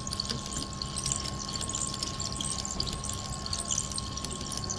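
Blood gas analyzer running its automatic two-point calibration, drawing calibration solution from a freshly installed solution pack: a steady hum with two even tones and a light, scattered crackle.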